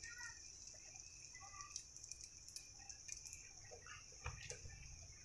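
Egg-coated bread frying in shallow oil in a pan: a faint steady sizzle with scattered small crackles and pops.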